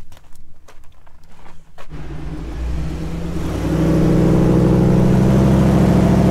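A few scuffs and clicks, then about two seconds in the Morrvair off-road recovery rig's engine comes up under load. It grows louder and runs steadily as the rig drives across the loose dirt.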